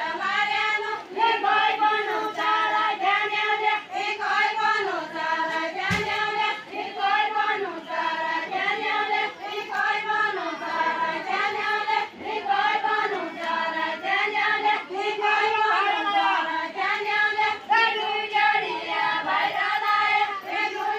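Deuda folk song sung unaccompanied by a large group of mostly women's voices, a short melodic phrase repeating over and over. Once, a sharp knock cuts through.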